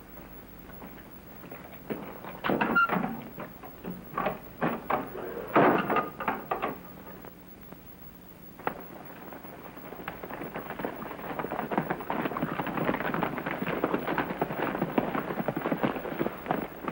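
A run of knocks and thumps, then, after a short lull, the rapid hoofbeats of several galloping horses, rising from about ten seconds in and carrying on steadily.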